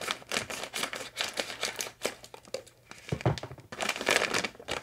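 Clear plastic packaging crinkling and rustling as a hair wrap towel is worked out of its bag, loudest just before the end.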